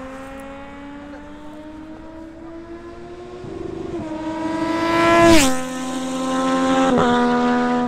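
Sport motorcycle with a loud aftermarket exhaust doing a high-speed flyby. The engine note climbs steadily as it accelerates toward the microphone and is loudest about five seconds in, where the pitch drops sharply as the bike passes. The note breaks briefly about seven seconds in.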